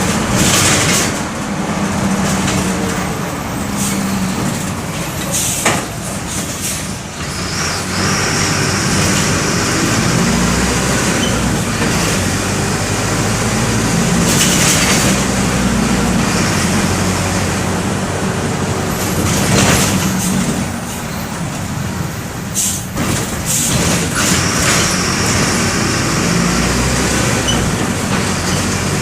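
Mercedes-Benz OF-1519 bus's four-cylinder OM 924 LA diesel engine running under way, heard from inside the bus, its pitch rising and falling as it pulls and changes speed. Several short bursts of hiss cut in, the longest about halfway through.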